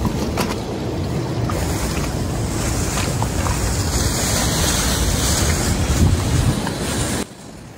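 Wind buffeting the microphone: a steady, loud rumbling noise with a hiss over it, which cuts off abruptly near the end.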